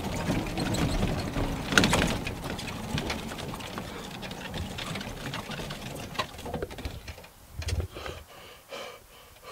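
Golf cart driving over rough ground, its drive running with a fast steady rattle and the body knocking, and one loud knock about two seconds in. The sound dies away about seven seconds in as the cart slows to a stop.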